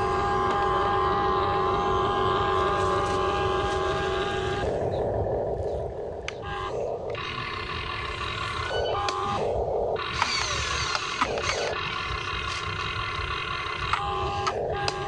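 Huina RC excavator's electric motors whining steadily as the boom, arm and bucket dig and swing, the whine cutting out and changing pitch several times as the controls switch between movements, with a few sharp clicks.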